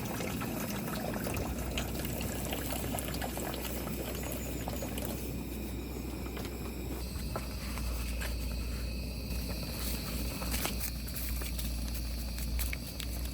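Water sounds: a steady liquid pouring and bubbling noise with scattered small clicks.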